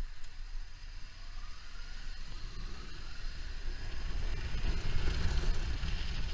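Motorcycle riding at highway speed: the engine revs up with rising pitch, and engine and wind noise on the microphone grow louder as it accelerates, peaking about five seconds in.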